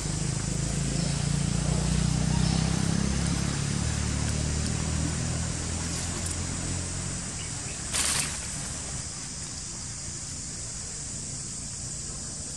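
Steady insect chirring in the treetops, with a low rumble over the first several seconds. A short, loud burst of noise comes about eight seconds in.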